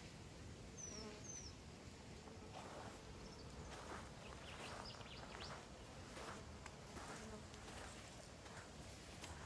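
Quiet outdoor ambience with insects buzzing and soft footsteps on sandy ground, plus two short high chirps about a second in.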